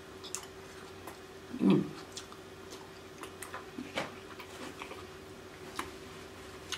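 Close-miked chewing and lip smacking of sauced lobster tail meat: scattered small wet clicks, with one louder, low mouth sound about two seconds in. A faint steady hum runs underneath.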